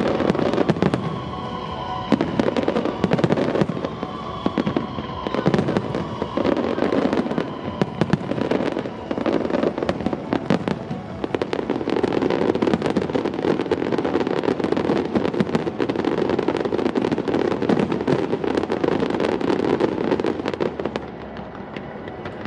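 Fireworks display: a dense run of aerial shell bangs and crackling, thickest in the second half and easing just before the end.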